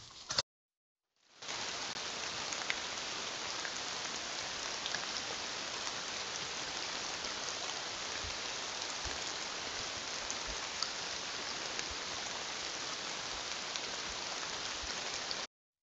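Steady, even hiss with a few faint ticks, starting about a second and a half in after a short dead silence and cutting off suddenly near the end.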